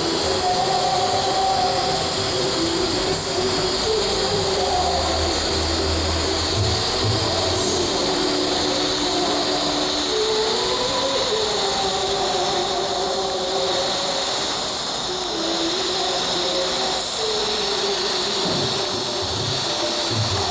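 TIG welding arc on Inconel 625-clad pipe, a steady hiss, over a droning hum whose pitch wanders up and down.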